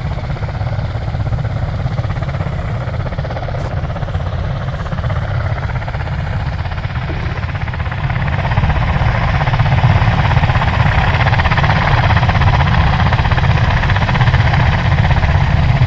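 Marine Corps MV-22 Osprey tiltrotors running on the ground, their turboshaft engines and proprotors making a steady, loud rumble that grows louder about halfway through.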